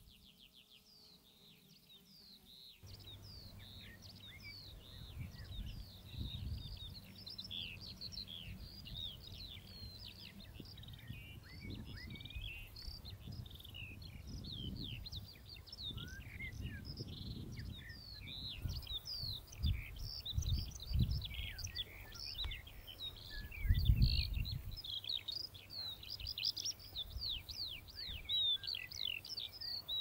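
A chorus of birds singing and chirping, many quick high notes overlapping throughout, over low rumbling noise that swells now and then and is strongest about four-fifths of the way through.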